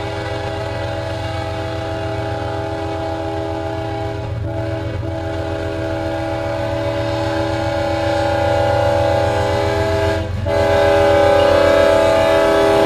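Ferromex GE ES44AC diesel locomotive's air horn sounding a held chord of several notes over the rumble of its engine. The horn breaks off briefly about four and a half seconds in, again half a second later, and once more near ten seconds. It grows louder as the locomotive draws nearer, stepping up after the last break.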